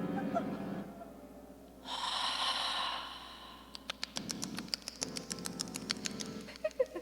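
A breathy whoosh lasting about a second and a half, then a run of irregular sharp crackles and clicks from objects being handled.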